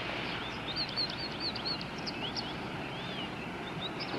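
Small birds chirping outdoors, with many short, high rising and falling chirps over a steady hiss.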